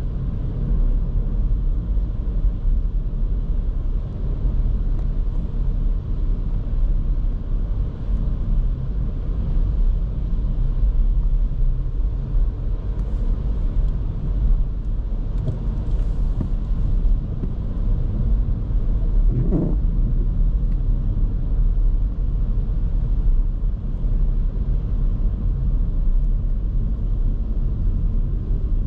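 Skoda Kamiq's 1.0 TSI three-cylinder turbo petrol engine and tyres during city driving, a steady low rumble. A brief higher-pitched sound comes about two-thirds of the way through.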